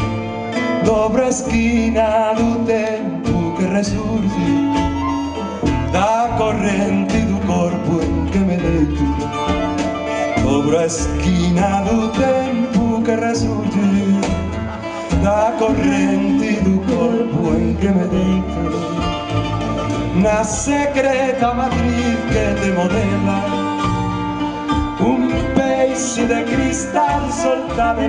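A live acoustic folk band playing: double bass, violin and a small strummed guitar, with singing.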